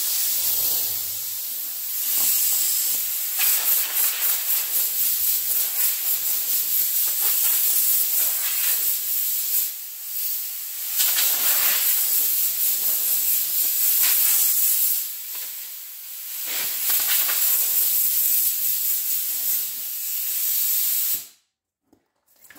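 Compressed air hissing out of an air hose, blowing dust out of a furnace filter. The hiss flutters and dips several times, then cuts off near the end.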